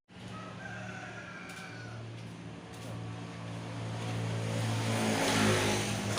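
Motorcycle engine running steadily, growing louder with a rising rush of noise near the end.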